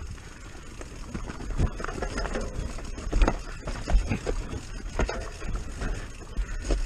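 Commencal Clash mountain bike descending a rocky dirt trail: tyres crunching over stones and loose gravel, with irregular knocks and rattles from the bike over bumps, the sharpest about three and four seconds in. A low rumble of wind on the microphone runs underneath.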